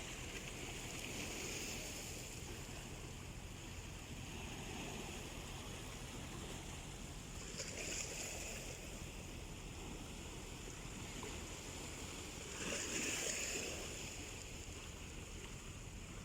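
Small sea waves washing on the shore under a steady rush of wind, with the biggest wash about 13 seconds in.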